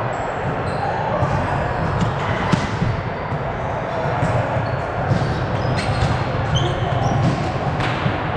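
Volleyball play on an indoor court: several sharp hits and bounces of the ball, short high-pitched squeaks of shoes on the floor, over steady background chatter.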